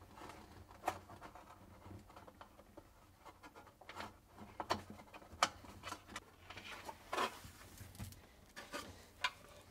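Faint rubbing and scattered light clicks of plastic parts being handled: a refrigerator's plastic damper cover being pulled free while the thermistor's wire is fed through its opening.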